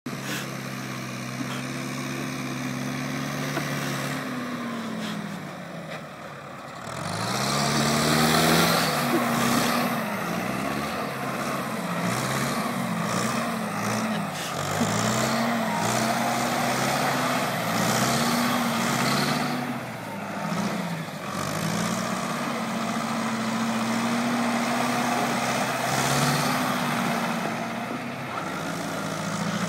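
Farm tractor's diesel engine running hard while it spins donuts in snow, its pitch swinging up and down again and again as the throttle is opened and eased. It runs steadily at first, sags about five seconds in, then revs up sharply.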